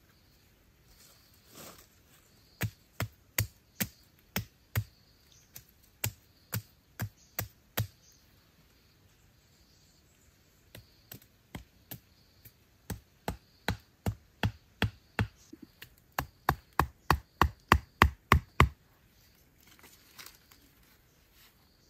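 Machete striking wood in a series of sharp chops, about two to three a second, in short runs broken by pauses. The last run, near the end, is quicker and louder before it stops.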